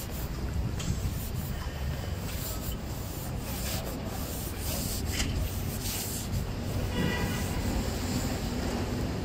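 City street ambience: a steady low rumble with scattered clicks and rubbing noise, and a brief higher-pitched sound about seven seconds in.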